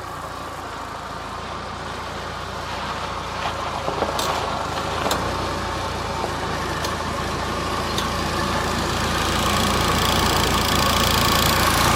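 Mahindra Thar driving slowly on a rough track, its engine and running noise steady and growing slowly louder, with a few sharp knocks along the way.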